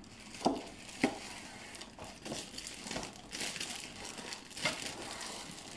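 Cardboard box handled while a plastic-wrapped tripod is slid out of it, the plastic bag crinkling and rustling, with two sharp knocks about half a second and a second in.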